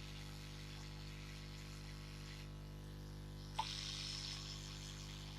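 Hot-air rework station blowing with a faint hiss over a steady electrical hum. The hiss stops for about a second past the middle and comes back with a sharp click.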